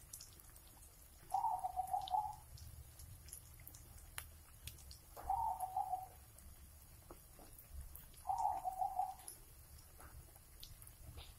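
Zebra dove (perkutut) cooing: three calls of about a second each, a few seconds apart, each a quick run of soft stuttering coo notes.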